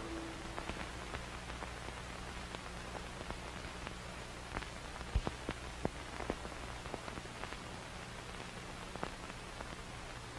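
Faint crackling static: a steady hiss with irregular scattered clicks, one sharper click about five seconds in, over a low steady hum.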